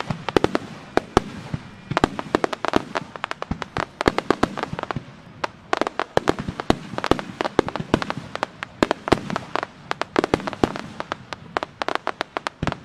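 Fireworks display, aerial shells bursting in a rapid barrage: many sharp bangs a second, overlapping, with brief thinner spells about halfway and near the end.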